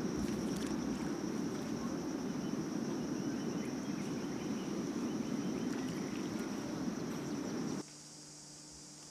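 Outdoor ambience of insects with a steady high-pitched buzz over a dense low rumbling noise. About eight seconds in it cuts abruptly to a quieter ambience, with the insect buzz fainter and a faint low hum.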